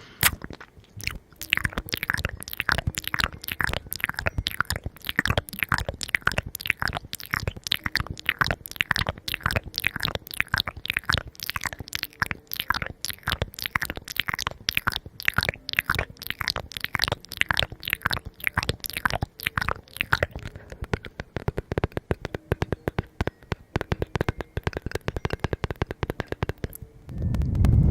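Crunchy food chewed close to the microphone: a steady run of crisp crackling bites, about three to four a second, ending with a brief low thump.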